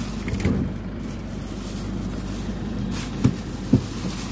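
Steady low hum of a car idling, heard inside the cabin, with two short knocks about three seconds in and shortly after.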